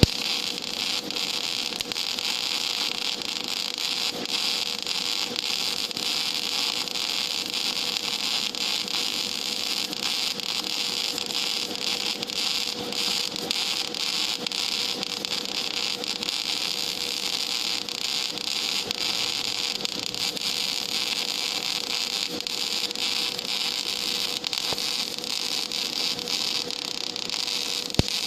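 Gas metal arc (MIG) welding arc running on plate: a steady crackling sizzle with a faint hum under it. A sharp crack at the start and another just before the end.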